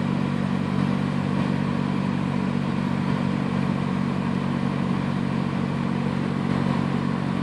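Car driving at a steady pace, heard from inside the cabin: an even engine and road hum that holds the same pitch throughout.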